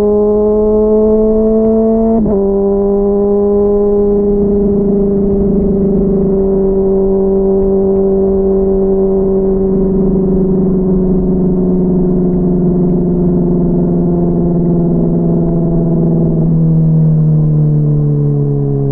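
Honda CBR600RR inline-four engine under light throttle, muffled as heard from inside the rider's backpack. Its pitch climbs slightly, drops suddenly about two seconds in as it changes gear, then eases slowly lower. Near the end it drops suddenly again.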